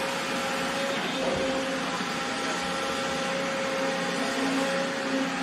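Kobelco hydraulic excavator running, its diesel engine and a whining hydraulic pump working steadily as the boom lifts the bucket.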